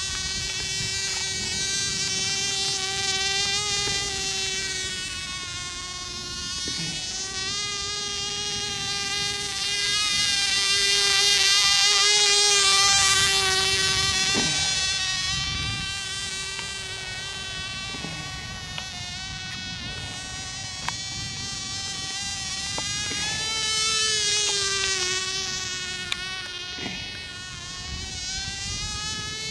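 Cox .010 two-stroke glow engine on a tiny RC model plane buzzing overhead with a high, thin whine that wavers slightly in pitch and swells and fades as the plane flies past, loudest a little before halfway and again late on. The engine is running rich while still being run in, so it is turning at low power.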